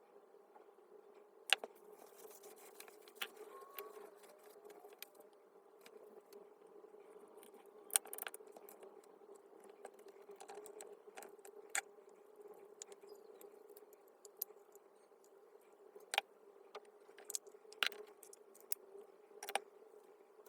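Scattered light clicks and taps, as of small parts or tools being handled, over a faint steady hum.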